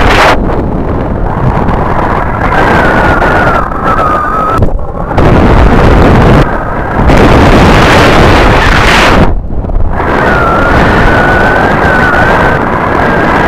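Strong wind rushing over a helmet-mounted microphone during a paraglider's low descent to landing, surging and easing a few times. A thin, wavering high tone comes in over the wind for a couple of seconds and again about ten seconds in.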